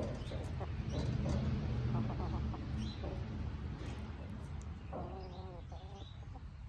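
Chickens clucking close by in short, scattered calls, with a quick run of pitched clucks about five seconds in, over a steady low rumble.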